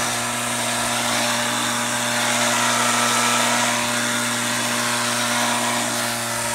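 Black+Decker electric string trimmer's motor running with a steady whine, a little louder around the middle.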